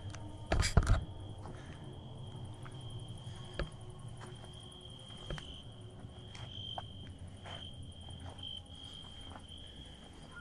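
Crickets trilling steadily at one high pitch. About half a second in there is a brief loud thump, and a few faint clicks follow later.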